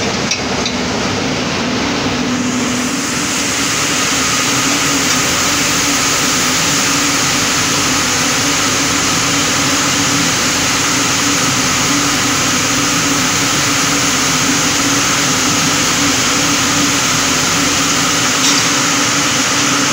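A forklift moving through a spinning mill: a steady motor hum under the dense, continuous whir and hiss of running spinning frames, which fills out about two and a half seconds in.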